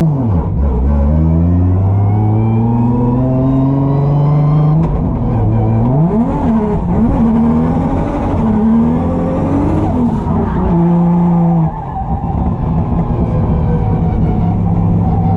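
Drift car's engine revving hard through a lap: the pitch climbs in long rises, drops back, and swings quickly up and down several times in the middle, with a brief dip in level near the end.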